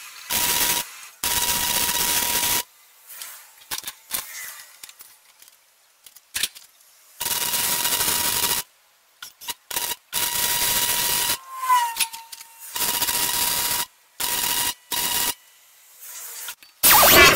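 Electric arc welding a steel pipe nipple onto a propane cylinder: the arc crackles and hisses in about six short runs of one to one and a half seconds, stopping and restarting between them as the joint is stitched around. A louder, harsh burst comes near the end.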